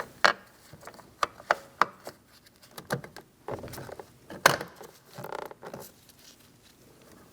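Irregular light clicks, taps and knocks of small bolts being handled and set into their holes in a car door's handle reinforcement, with a sharper knock about four and a half seconds in and brief rustling in between.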